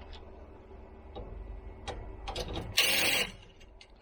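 Light clicks and knocks of network equipment being handled in a rack, then a loud rasping burst lasting about half a second, a little under three seconds in.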